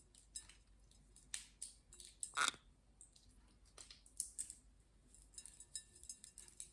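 Green-cheeked conure's beak crunching and picking at walnut pieces: scattered small clicks and crackles, with one louder crunch about two and a half seconds in.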